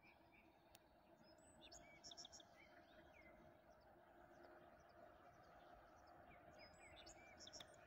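Near silence with faint birdsong: a songbird gives the same short, chirpy phrase twice, about a second and a half in and again near the end, over a faint steady hum.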